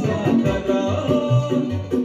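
Lively band music with a steady bass beat, about two beats a second, and a melody line over it.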